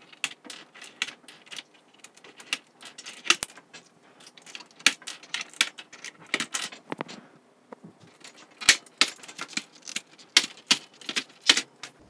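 Irregular sharp clicks and light plastic clatter as the gauge needles are pried off a GM instrument cluster with a plastic tool and the cluster's plastic faceplate is taken off.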